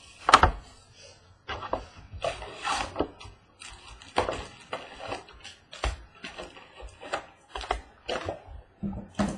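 A box of trading cards being opened and its foil packs handled: a sharp knock about half a second in, then an irregular run of rustles, crinkles and taps.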